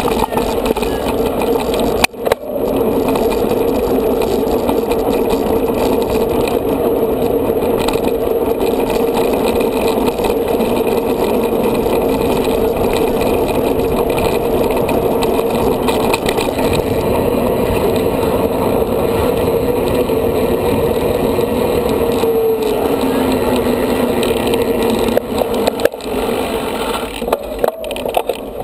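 Mountain bike rolling along a paved path, heard through a bike-mounted camera: a steady hum from the tyres with rattle from the bike and mount. The hum drops in pitch a little over 20 seconds in as the bike slows.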